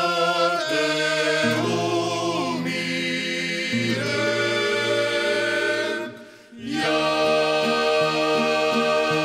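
A cappella choir singing slow, held chords in the manner of Croatian klapa, with a short break about six seconds in before the next phrase begins.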